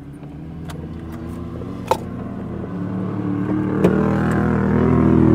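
Engines of side-by-side UTVs driving past on a dirt trail, a steady engine note that grows louder as more of them come by. Two brief sharp clicks are heard about two and four seconds in.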